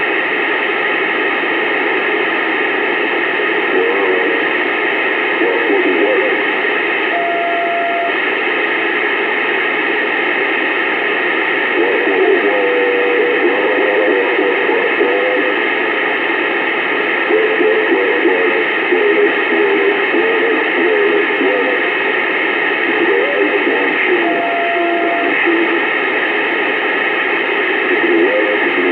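CB radio receiver hiss: steady static with a weak, garbled voice barely coming through underneath. A short steady beep tone sounds twice, about seven seconds in and again about twenty-four seconds in.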